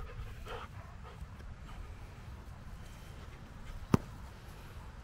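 A dog whimpering faintly a few times at the start, over a steady low rumble. A single sharp click about four seconds in.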